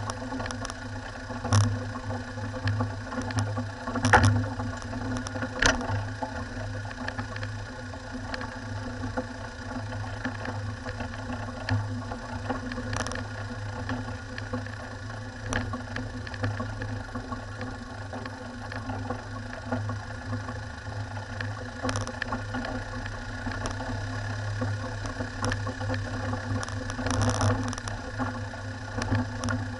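Four-wheel-drive vehicle's engine running steadily at low speed on a rough gravel track, with occasional knocks and rattles as it jolts over rocks.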